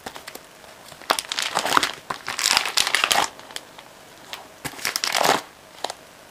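Sheets of paper rustling and crinkling as they are handled and shuffled, in a few noisy bursts with sharp ticks between them.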